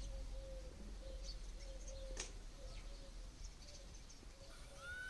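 Birds calling: faint scattered high chirps over a short low note that repeats two or three times a second, with one sharp click partway through, and a single arched call starting near the end.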